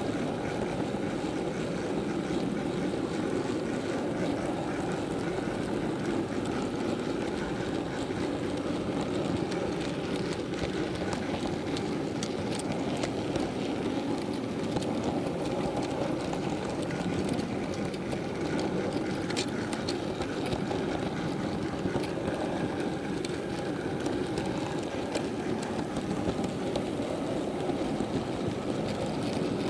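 Steady rumble and rattle of a model railway goods train running along the track, heard up close from one of its own wagons, with a few faint clicks.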